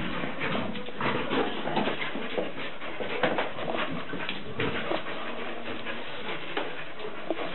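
Two dogs playing and scuffling on a tiled floor, with whimpering among a steady run of quick clicks and scrapes.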